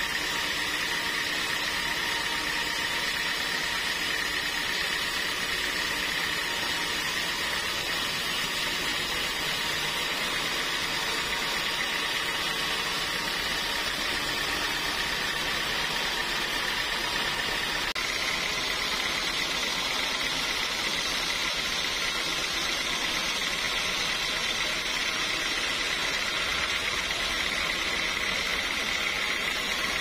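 Bandsaw mill sawing through a large mahogany log: a steady mechanical whine over the hiss of the blade in the wood. The whine steps up slightly in pitch about halfway through.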